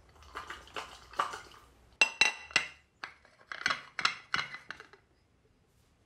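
Glass mug knocking and clinking against a ceramic plate as it is held upside down and shaken to turn out a microwave mug pudding. Softer knocks come first, then three loud clinks with a short ring about two seconds in and three more soon after.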